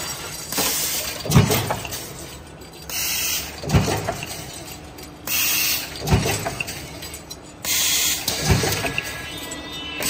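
Cabinet-hinge production machinery running in a steady cycle. A stamping press strikes with a heavy thud about every two and a half seconds, and a roughly one-second burst of compressed-air hiss comes between strokes.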